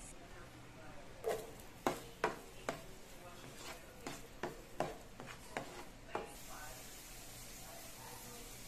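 A spatula knocking and scraping in a nonstick frying pan while diced red bell pepper is stirred into melted butter: a string of sharp knocks over the first six seconds, then a steady sizzle of the butter and peppers frying.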